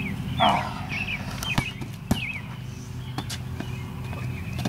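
A basketball thumping on a concrete driveway a few times in sharp, irregular knocks, with short bird chirps and a steady low hum underneath.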